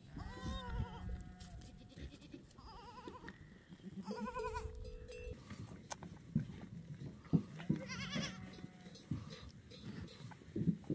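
Goats bleating: about four separate wavering calls, with a few sharp knocks in between.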